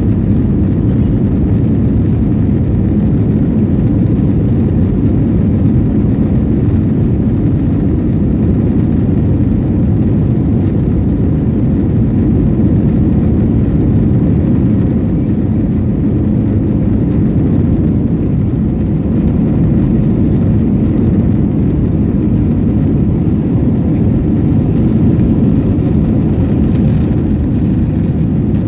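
Cabin noise of an Airbus A321-231 on its takeoff roll: its IAE V2500 turbofans at takeoff thrust and the roll down the runway make a loud, steady low rumble.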